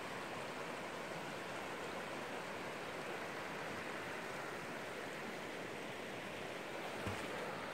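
Fast-flowing mountain river rushing over shallow rapids: a steady, even rush of water, with one soft knock near the end.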